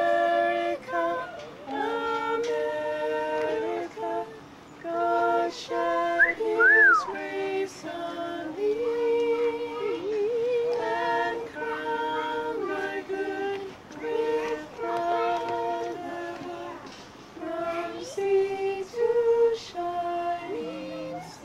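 Singing: a tune of long held notes in short phrases, with two pitches often sounding together, and a brief high swoop up and down about six seconds in.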